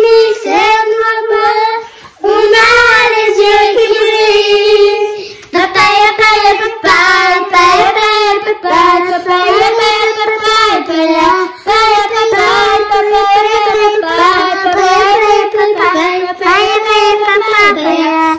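A child singing a French song unaccompanied, a melody that runs on with only short breaths between phrases.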